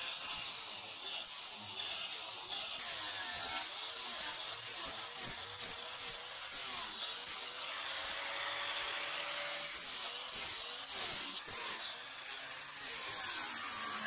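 Hand-held angle grinder with a sanding disc running against shaped foam, a high-pitched whine and abrasive hiss that rise and fall irregularly as the disc is pressed into and lifted off the foam.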